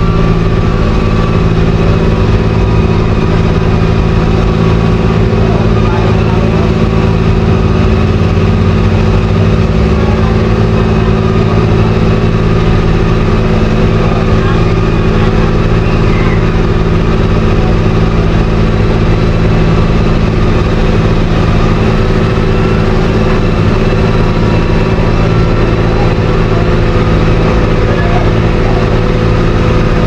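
A loud, steady mechanical hum of running engines or motors, with several low steady tones that do not change.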